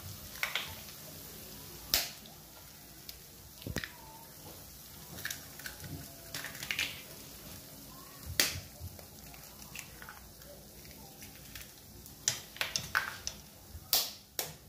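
Eggshells being cracked and broken open by hand, one egg after another: a string of sharp cracks and crunchy snaps, loudest about two seconds in, about eight seconds in, and in a quick cluster near the end.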